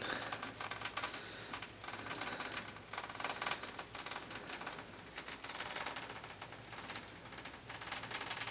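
Rapid light clicking and rustling from a mesh pop-up butterfly enclosure and its zipper as a cat paws at it.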